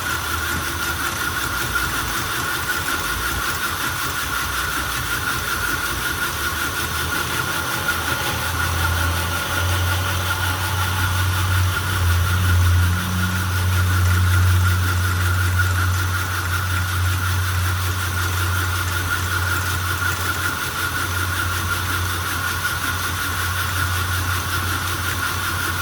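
Belt grinder running with a fine 400-grit belt while a knife bevel is ground freehand: a steady high whine over a low hum. The hum grows louder from about ten seconds in and eases off near twenty seconds.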